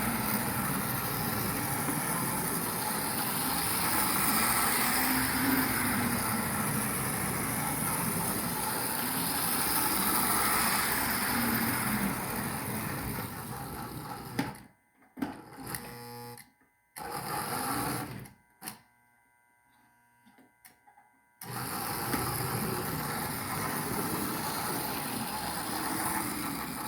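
American Flyer 355 Baldwin diesel model locomotive pulling a freight train on its track: a steady whirr of electric motor and running wheels that swells twice. Past the middle it drops away almost to nothing for several seconds, with a few short bursts, then resumes.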